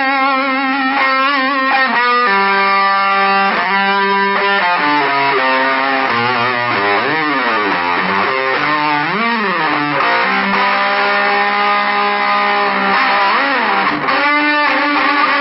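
Electric guitar played through a homemade clone of the Triangle Big Muff fuzz pedal: long, sustaining fuzzed notes with wavering vibrato, and several bends sliding up and down in pitch around the middle.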